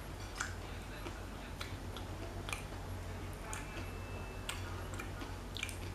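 Mouth and hand sounds of eating fried gourami fish by hand: irregular small clicks and smacks of chewing, over a steady low hum.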